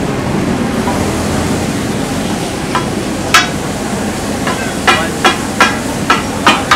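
Chicken and a freshly poured wet masala paste sizzling on a large hot iron tawa, a steady hiss. Several sharp knocks come through from about three seconds in, the loudest a little past the three-second mark.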